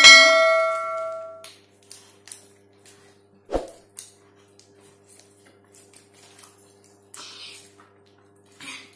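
Bell-like ding sound effect from an animated subscribe-and-bell button, ringing out at once and fading over about a second and a half. A single thump follows about three and a half seconds in.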